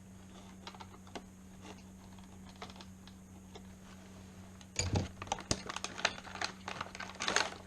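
Metal deadbolt lock parts being handled and fitted together: a few faint clicks, then from about five seconds in a quick run of sharp clicks and rattles.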